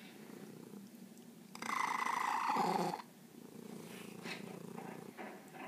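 Domestic black-and-white cat purring steadily while being petted. A louder noisy burst lasting about a second and a half rises over the purr about a second and a half in.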